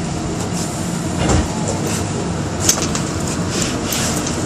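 Steady hum inside a Bombardier Innovia APM 100 automated people-mover car, with a low thump a little over a second in and a sharp click near the middle.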